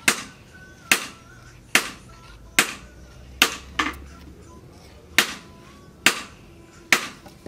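A series of sharp knocks, roughly one every second, with one quick double knock and one skipped beat, over a faint wavering tone.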